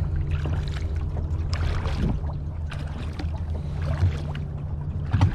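Kayak paddle strokes splashing and dripping water, over a steady low rumble.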